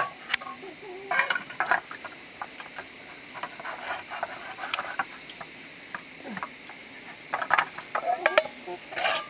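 Metal bowls and plates clinking and clattering as they are handled and washed by hand, in clusters about a second in and again near the end.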